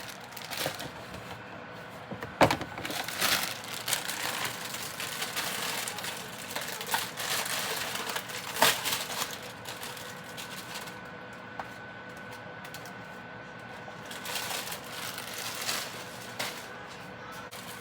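Kitchen handling sounds: scattered knocks and clicks with bursts of rustling, as food and cookware are moved about. The loudest knocks come about two and a half seconds in and again a little past eight seconds.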